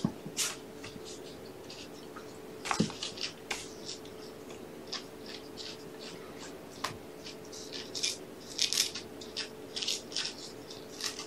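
Kittens scuffling in play: scattered short scratches and rustles, with two sharper knocks about 3 and 7 seconds in, over a steady low hum.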